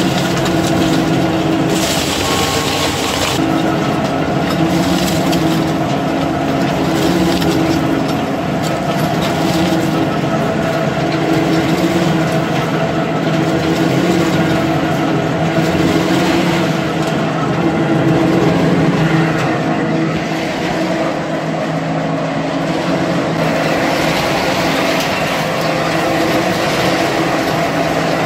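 Industrial tire shredding machinery running: a steady, loud drone from the shredder's motor and drive, with a rough grinding noise as scrap tire rubber is torn into chips. The hiss briefly grows stronger about two seconds in.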